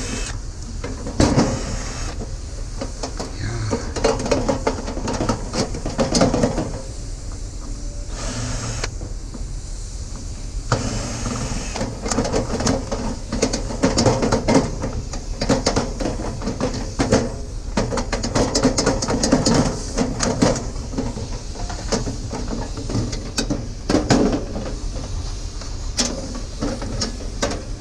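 Cordless drill-driver whirring in short bursts as it backs screws out of a sheet-metal appliance casing. Between bursts come metal clanks and rattles as the loose panel is handled and lifted off.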